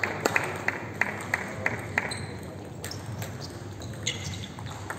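Plastic table tennis ball bouncing: a run of light, evenly spaced ticks, about three a second, for the first two seconds, then a few scattered ticks.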